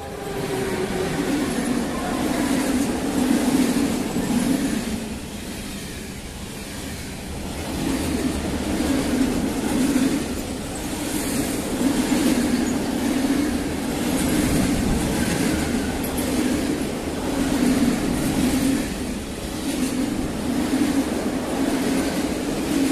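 A freight train of covered wagons hauled by an ET22 electric locomotive passing close by, louder as the locomotive arrives in the first second, then a steady rolling rumble with a repeating beat of wheelsets every second or two as the wagons go past.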